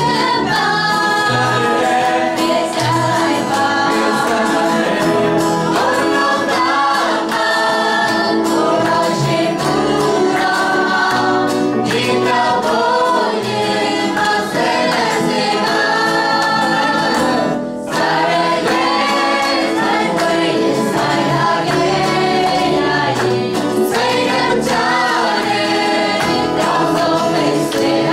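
A small mixed group of men and women singing a song together into microphones, accompanied by an acoustic guitar, with a brief break in the sound about two-thirds of the way through.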